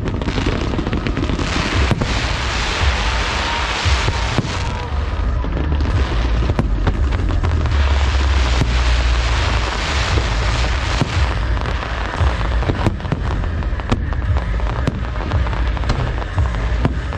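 Fireworks display: a dense, continuous run of shell bursts and crackling, with deep booms underneath.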